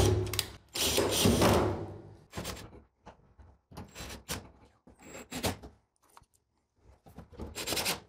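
Handling noise from refitting a clothes dryer's sheet-metal panel and its screws: a long scraping rub about a second in, then scattered knocks and clicks.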